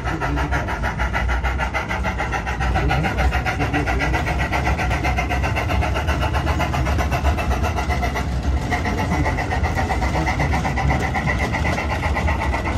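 Steam-locomotive sound from the onboard sound unit of a battery-powered, radio-controlled 32mm gauge model of the Ffestiniog 0-4-0 "Prince": a rapid, even exhaust beat as it runs along under power, with a steady low rumble beneath.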